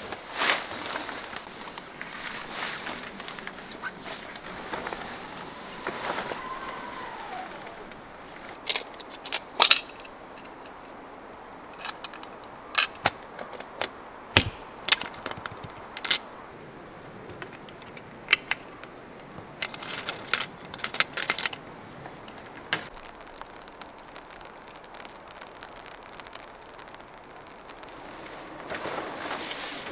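Tarp fabric rustling as it is pulled over a car. Then a run of sharp clicks and snaps while a round anchor mount is fitted onto the car's roof; the loudest snap comes about halfway through, with a dull thump under it.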